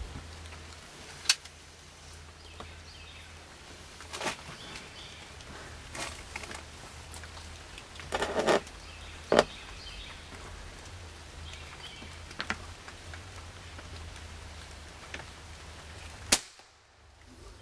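Scattered sharp clicks and ticks at irregular intervals over a faint steady low hum, with a small cluster just past the middle and the loudest click near the end, where the sound cuts off abruptly.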